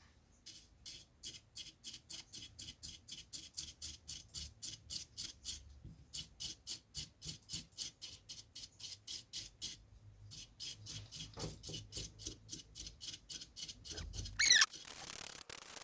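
A small brush sweeping dust off a laptop cooling fan in quick, even strokes, about three or four a second, with two short pauses. A brief, louder squeak that falls in pitch comes near the end.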